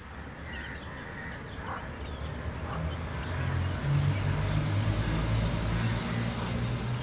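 Chicks peeping faintly in short, high chirps. From about three seconds in, the low steady hum of an engine rises and becomes the loudest sound.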